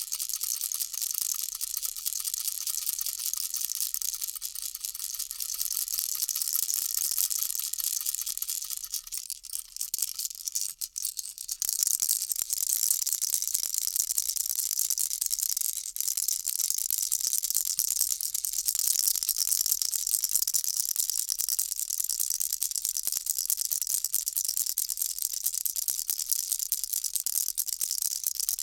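Baby rattle shaken steadily, a dense high-pitched shimmer of beads rattling, with a faint ringing tone under it. It dips briefly about ten seconds in, then resumes more strongly.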